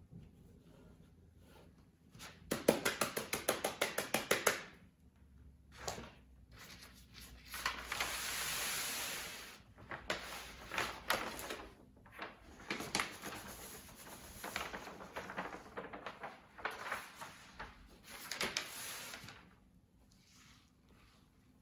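Gloved hands rubbing dampened black powder across a granulating screen: quick scratchy strokes in bursts, about seven a second in the first run. About eight seconds in, a steady hiss of granulated powder pouring out for a couple of seconds.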